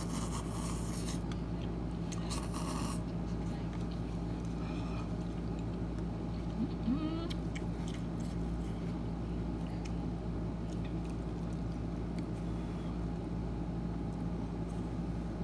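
A person slurping hot cup noodles, two short slurps in the first few seconds, over a steady low hum.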